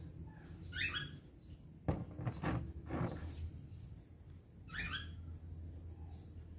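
Handling of a glass bottle and plant cutting: a few sharp knocks about two seconds in, and two short high-pitched sounds near the start and again near the end, over a steady low hum.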